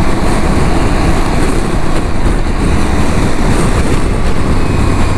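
Motorcycle riding noise: a steady, loud rush of wind and rumble from a riding Aprilia Tuareg 660, its parallel-twin engine running underneath.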